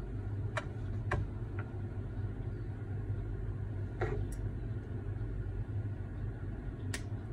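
Steady low hum of running machinery, with a few light clicks and taps scattered through it.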